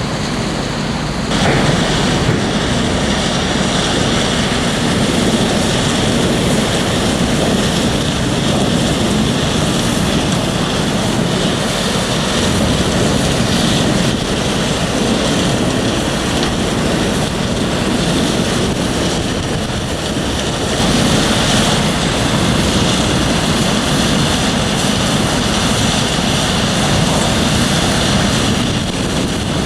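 Large wood chipper running with a loud, steady machine noise. It steps up in level about a second in and again around twenty seconds in, easing slightly near the end.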